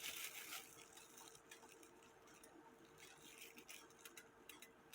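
Near silence with faint, scattered light clicks from the cuckoo clock movement as it is handled, a little louder at the start, over a faint steady hum.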